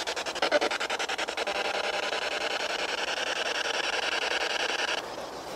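P-SB7 spirit box sweeping through radio frequencies: a fast, even chopping of static with fragments of radio noise, which stops abruptly about five seconds in.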